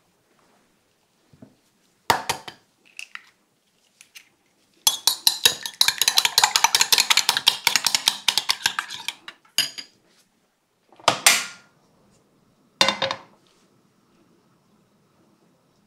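An egg being beaten in a small glass bowl: a utensil clinks rapidly against the glass for about five seconds. Before it comes a single sharp knock, and after it a few separate clinks and knocks of kitchenware.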